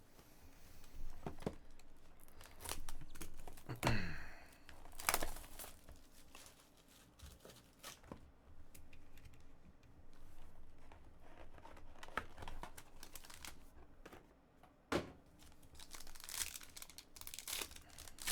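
Wrapping on sealed trading-card boxes being torn and crinkled open by hand, in irregular short rips and rustles with a few handling clicks.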